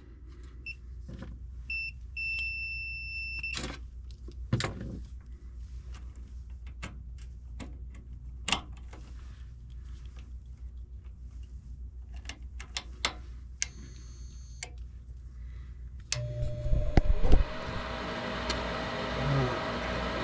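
Steady low hum with scattered clicks and taps, and two electronic beeps about two seconds in, a short one then one held for over a second. About 16 seconds in, a furnace inducer draft motor starts with a thump and runs louder with a steady whine, the motor that must run for the pressure switch to close on a call for heat.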